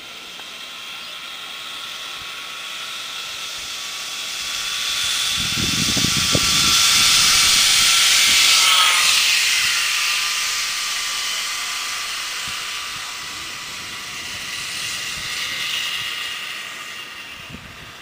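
Zip line trolley running along the steel cable: a hissing, whining whir that swells as the rider approaches and drops in pitch as it passes, about halfway through, then fades away. Low rumbles of wind on the microphone just before the peak.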